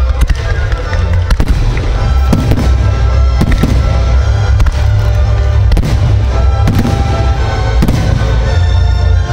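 Fireworks display: a string of shell bursts and launch bangs over a steady low rumble, mixed with crackling, played against music.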